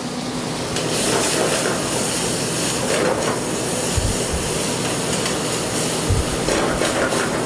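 Beef and vegetables stir-frying in a very hot wok over a gas burner: a steady loud sizzle and hiss that swells about a second in as the oil flares up into flames for the flambé, with a couple of dull low thumps near the middle.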